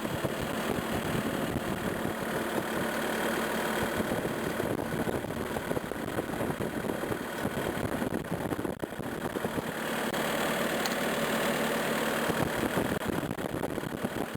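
Skid steer engine idling steadily.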